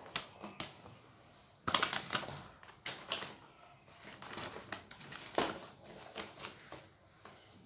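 Plastic bag crinkling and rustling in short, irregular bouts as things are handled in it, loudest about two seconds in.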